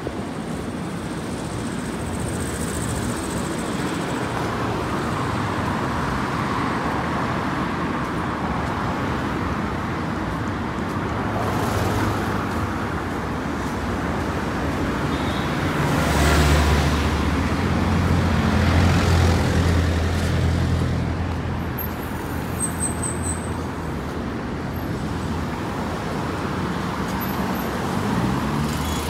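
Road traffic on a city street: cars driving past in a steady hum. A deeper engine drone swells louder from about sixteen to twenty seconds in.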